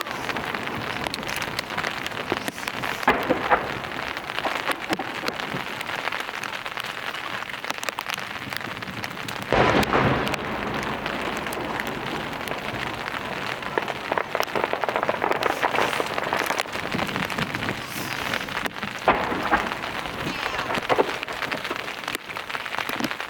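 Heavy rain falling steadily on a nearby surface, with a few dull booms from large aerial firework shells. The loudest boom comes about ten seconds in.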